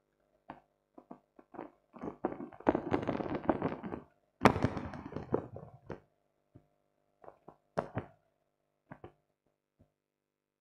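Close handling noise on a clip-on microphone: cloth rustling against it with scattered taps and knocks, a thick stretch of rustling in the middle and one sharp knock about four and a half seconds in.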